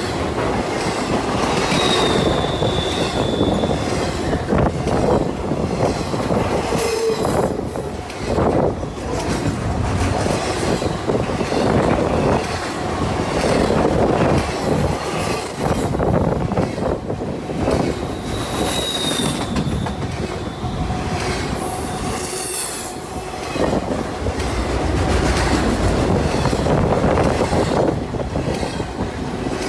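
Intermodal freight train's double-stack well cars rolling past close by, wheels clattering steadily over the rail joints. Several brief high-pitched wheel squeals cut through the rumble.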